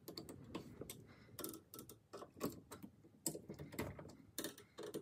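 Flat-blade screwdriver turning the slotted brass isolation valves under a combi boiler to shut off its water supply: a faint, irregular scatter of small metallic clicks and scrapes.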